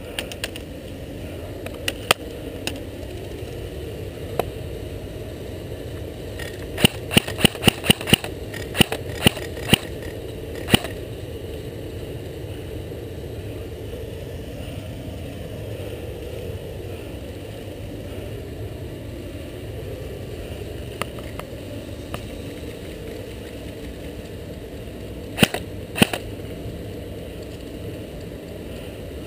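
Sharp cracks of airsoft guns firing: scattered single shots, a quick string of about a dozen shots a third of the way in, and two more near the end, over a steady rumble of background noise.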